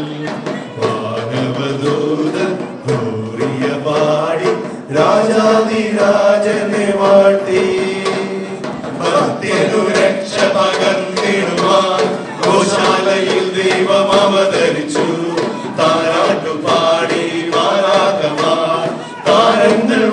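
A group of men singing a Christmas carol together, with a hand-held frame drum beating along.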